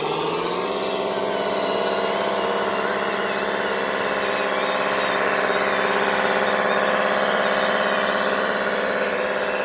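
Radio-controlled model truck, loaded, running through mud: a steady engine-like drone that rises in pitch about half a second in and then holds.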